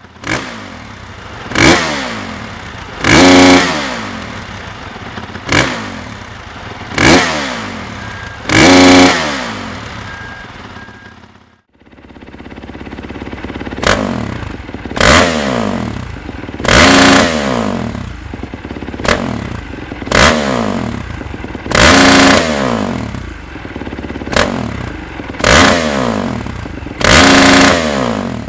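Honda CRF450R dirt bike's single-cylinder four-stroke engine idling and blipped over and over, each rev shooting up and dropping back to idle. There are five blips, then a short break about twelve seconds in, then a second run of about nine blips.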